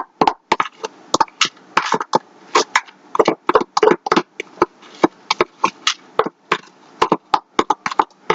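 A spoon knocking and scraping against a dish in quick, irregular taps, several a second, as soft icing is spooned onto a mug cake.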